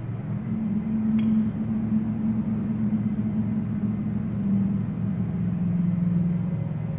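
A low, steady rumbling drone with sustained deep tones that shift slightly in pitch, and a brief click about a second in.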